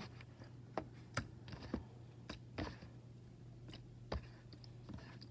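Homemade slime being worked and mixed, giving scattered small clicks and wet pops at irregular intervals.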